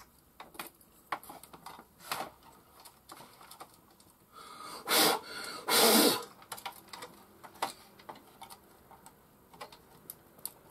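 Scattered small clicks and taps of fingers working parts and wire connectors on an Amiga A500 motherboard, with two louder short rushing noises about five and six seconds in.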